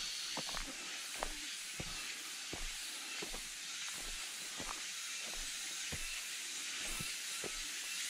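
Footsteps on a rocky dirt forest trail, about one or two steps a second, over a steady high hiss.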